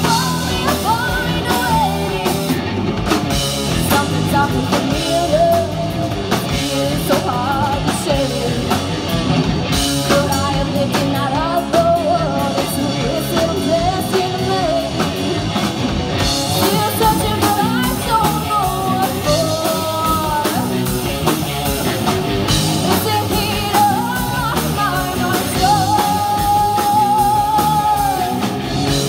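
Live rock band playing: a woman singing lead over a drum kit, electric guitars and bass guitar, holding one long sung note near the end.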